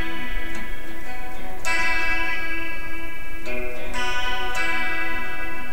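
Electric guitar playing a Bsus4 chord, notes picked separately and left ringing into each other, with a fresh attack every second or so.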